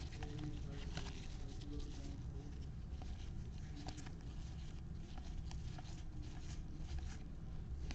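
Trading cards being flipped through by hand: faint, irregular light clicks and scratches as the cards slide over one another, over a steady low hum.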